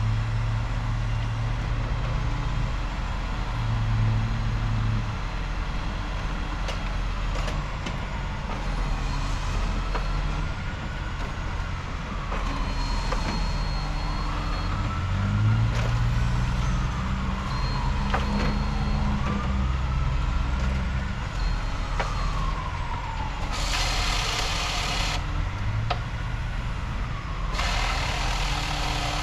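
Truck-mounted knuckle boom crane working, its engine running at changing speeds with a pitch that rises and falls repeatedly. Two loud hissing bursts come near the end.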